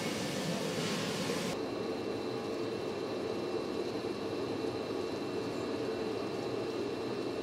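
Steady machine and ventilation hum of an industrial 3D-printing hall, with faint high whines. A hiss drops away about a second and a half in, and the hum carries on unchanged.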